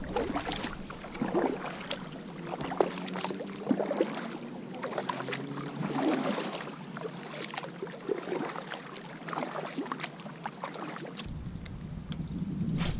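Kayak being paddled on a river: irregular paddle splashes and light knocks on the hull. Wind rumbles on the microphone for the last couple of seconds.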